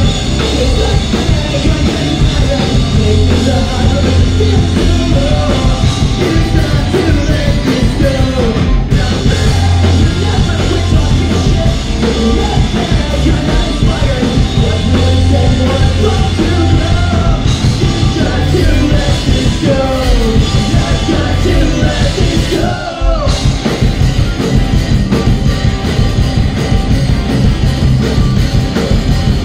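Live rock band playing loud: electric guitars, bass guitar and drum kit, with a male singer singing and shouting over them. The band cuts out for a split second about three-quarters of the way through, then comes back in.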